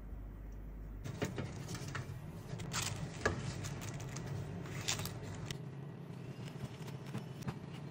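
Kitchen handling sounds: paper cupcake liners crinkling and light clicks against a metal baking tray, over a steady low hum.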